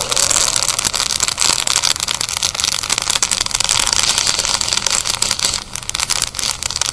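Coffee beans in second crack, crackling in quick, dense snaps inside a hot-air popcorn popper. The popper's fan is off after its overheat safety cutoff tripped, so the beans crackle without the blower noise; this is the final stage of a dark roast.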